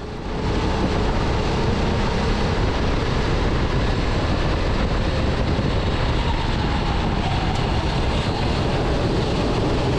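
Rental kart's engine running under throttle, heard from the driver's seat and mixed with wind and road noise, muffled through a GoPro in its waterproof housing. The engine note dips and rises again about two-thirds of the way in as the kart goes through a corner.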